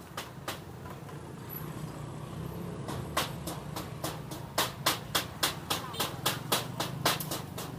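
A run of sharp, evenly spaced knocks, about three a second, starting about three seconds in, over a steady murmur of voices.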